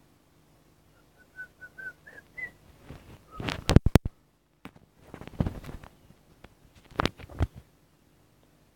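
A run of about six short whistled notes, stepping up slightly in pitch, followed by several loud clicks and knocks in three clusters.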